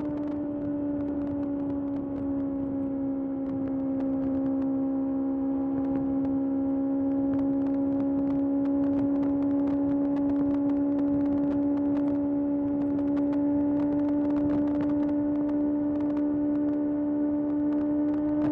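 Kawasaki ZX-6R's 636 cc inline-four engine running at steady cruising revs, its pitch sagging slightly a few seconds in and then climbing gently.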